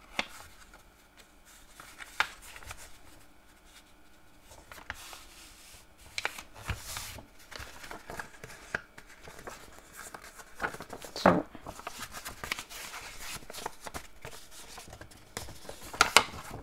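A sheet of patterned design paper being handled, bent into a tube and its taped glue flap pressed shut: scattered rustling and crinkling with light taps, and a sharper crackle about eleven seconds in and again near the end.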